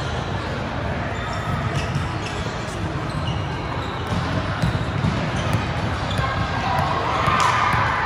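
Volleyballs bouncing and being struck around a large indoor sports hall: scattered thuds that echo, over a steady babble of players' voices.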